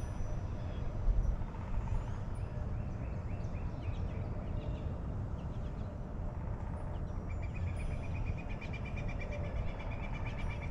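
Wild birds calling, with scattered short high chirps, then a long, even, rapid trill that lasts about three seconds near the end. Under it runs a steady low rumble.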